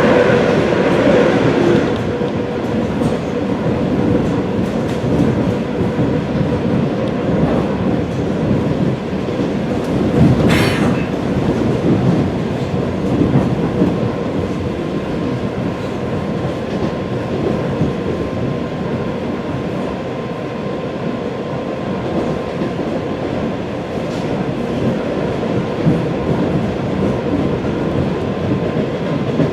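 ED4M electric multiple unit running along the line: a steady rumble of wheels on rails under a faint steady hum. A brief hiss comes about ten seconds in.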